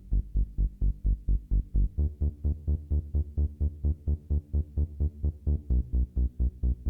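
Electronic dance music with a fast, even, pulsing bass beat, about four to five pulses a second.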